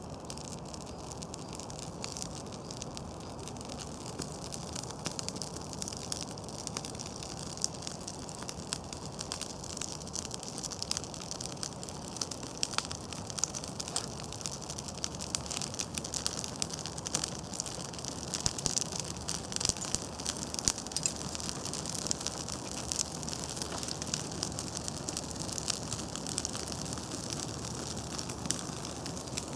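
Birch bark and kindling twigs catching fire, crackling with a dense, steady run of small pops and snaps.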